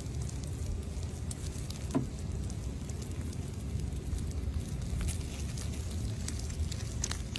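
Low, uneven rumble with scattered faint clicks and crackles, one a little louder about two seconds in: outdoor handling noise as fingers touch a snake's dry shed skin.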